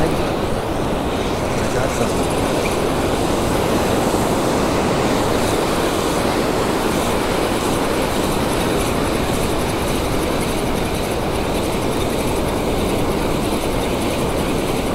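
Steady rushing of breaking surf and foamy wash on the shore, close to the microphone.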